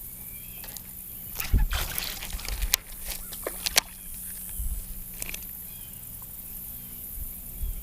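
Water sloshing and splashing around a small jonboat, with a few sharp knocks and clicks between about a second and a half and four seconds in.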